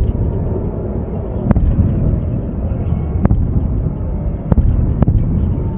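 Distant booms of Iron Dome interceptions: four sharp bangs spaced a second or so apart over a steady low rumble, with an air-raid siren wailing faintly behind.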